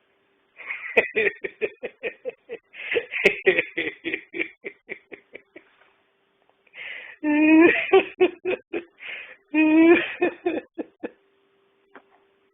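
A person laughing: several seconds of quick, breathy laugh pulses, then two longer voiced laughs.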